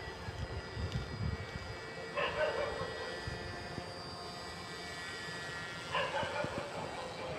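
Steady thin whine of a homemade RC paraglider's motor and propeller in flight, with low wind rumble in the first second or so. Two short loud calls cut through about two seconds in and again about six seconds in.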